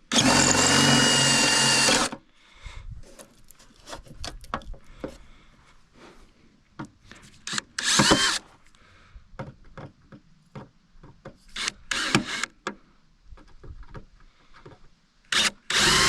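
Power drill drilling out the rivets of a snowmobile's rear bumper: a loud steady run of about two seconds, then scattered clicks and knocks of handling, a short burst about eight seconds in, and the drill starting again near the end.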